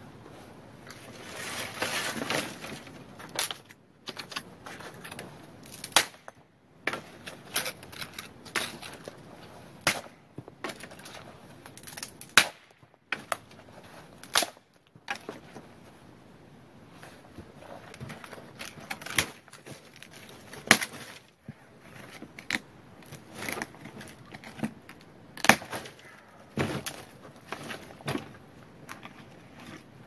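Footsteps crunching through crusty snow, with sharp cracks and snaps at irregular intervals and a longer rustle about two seconds in.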